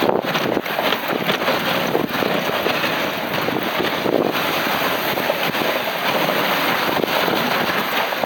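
Wind buffeting the microphone of a camera riding on a moving dog sled: a steady, dense rushing noise with slight swells.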